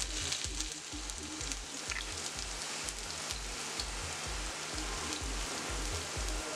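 Chopped red onion sizzling as it is dropped into hot oil in a frying pan, with a low pulsing beat of background music underneath.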